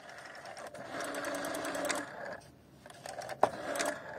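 Rotary telephone dial being turned and spinning back, a whirring with rapid even clicking, twice, with one sharp click during the second turn.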